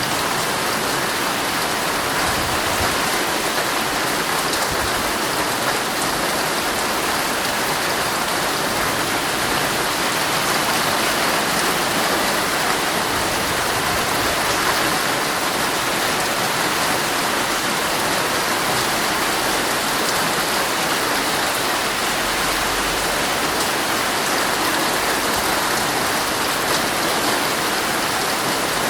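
Heavy rain falling steadily on a tent's fabric, a dense, even patter.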